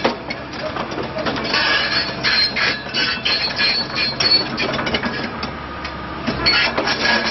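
Komatsu PC130-8 hydraulic excavator travelling on its steel crawler tracks: a dense, continuous clanking rattle of the track chains over the steady hum of its diesel engine.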